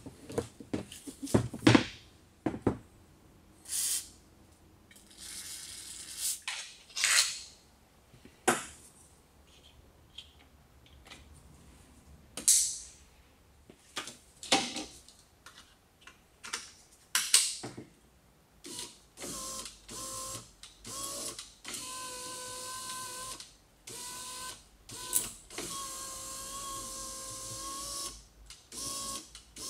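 Metal window regulator and its cables being handled: scattered clicks, knocks and rustles. From about two-thirds in, the Peugeot 607's electric window motor runs in short bursts of one to three seconds with brief pauses, whining steadily as it drives the regulator cable in a test of the repaired mechanism.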